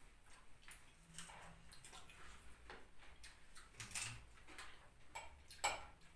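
Faint, irregular clicks and taps of cutlery and dishes at the table during a meal, a few light knocks a second apart, the loudest about four seconds in.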